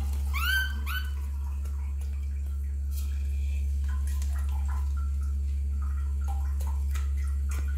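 Baby monkey squealing: two quick cries that rise and then hold, about half a second in, then fainter short whimpers through the rest, over a steady low hum.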